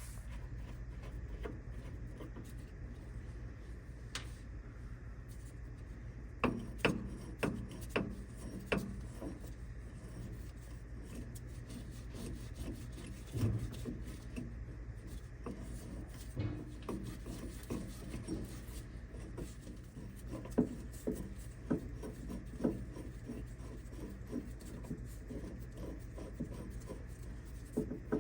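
Hand work on a bus's suspension: scattered clinks, knocks and scraping of tools and metal parts, in bunches, over a steady low hum.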